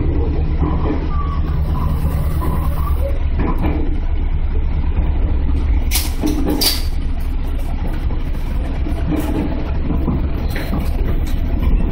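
Running noise of a JR 211 series electric train, heard from inside the car behind the cab as it slows into a platform: a steady low rumble of wheels on track, with a couple of sharp clicks about six seconds in.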